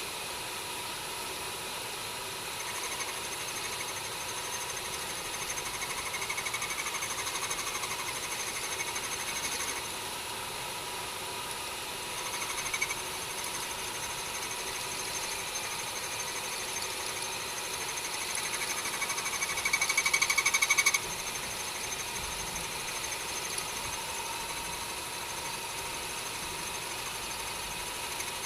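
Homemade mini lathe running steadily, with a constant motor whine. It gets louder and harsher for several seconds early on, again briefly in the middle, and once more near the end, where it cuts off suddenly.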